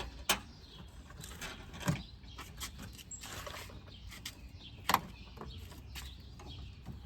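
A few sharp plastic clicks and snaps, three of them a second or more apart, as push-in trim retaining clips on a Honda Accord's front bumper cover are pried loose.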